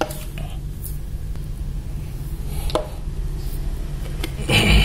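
Scattered knocks and taps of a plastic bottle being set down and handled on a concrete floor, with a louder thump near the end, over a steady low hum.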